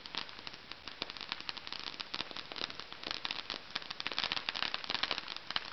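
Ground fountain firework crackling: a dense, continuous stream of sharp little pops that thickens and grows louder toward the end.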